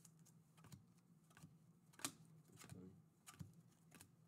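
Faint clicks and slides of glossy basketball trading cards being flipped one at a time through a stack held in the hands, with one sharper card snap about two seconds in.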